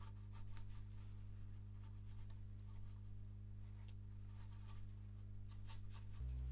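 Quiet, steady low hum with faint scattered clicks and rustles.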